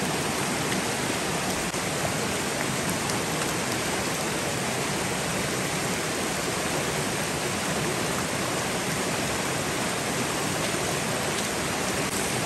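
Mountain stream flowing over rocks and a small cascade: a steady, even rush of water.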